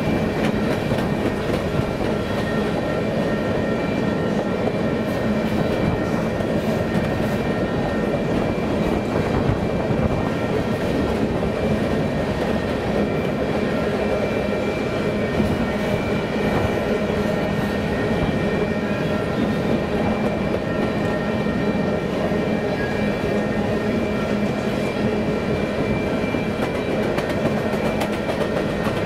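Empty covered hopper cars of a grain train rolling past at track speed: a steady rumble of steel wheels on the rails, with faint steady ringing tones above it.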